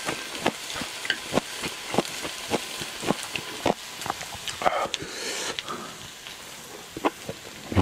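Pork neck steaks sizzling on a hot griddle pan: a steady frying hiss with irregular sharp pops and clicks.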